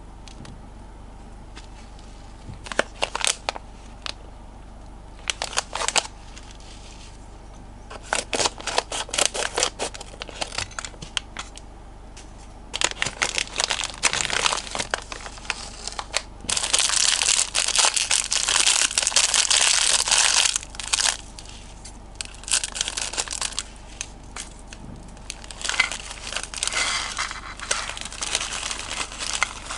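Plastic candy packaging crinkling and rustling as it is handled: a red candy pouch and a clear plastic bag of small candy pieces. It comes in short bursts at first, then a long stretch of steady loud crinkling past the middle, and more bursts near the end.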